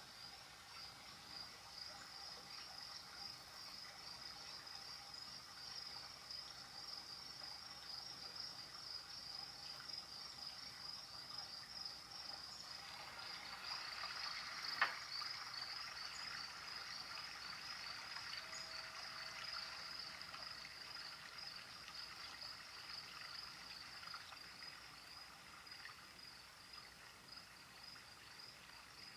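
Crickets chirping in a steady, fast pulsing trill, faint, with a soft trickle of water that swells through the middle. A single sharp click about halfway through.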